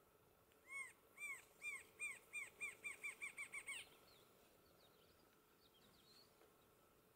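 Rufous-winged antshrike (Thamnophilus torquatus) singing: a run of about a dozen arched notes that comes faster and faster, starting about a second in and lasting about three seconds.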